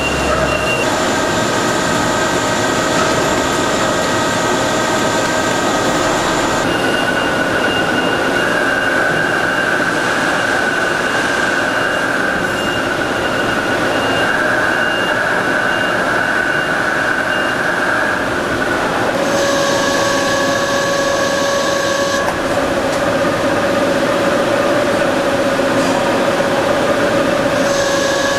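Goodway GS-4000 heavy-duty CNC lathe turning metal: a steady mechanical whine with high metallic squealing tones from the cut. The tones change abruptly several times.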